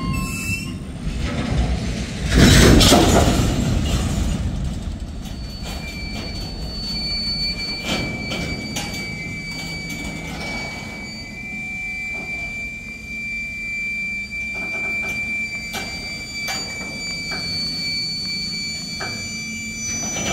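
Freight train cars rolling slowly past a grade crossing: long steady wheel squeal, with scattered clanks from the wheels and a low rumble underneath. A louder burst of noise comes about two and a half seconds in.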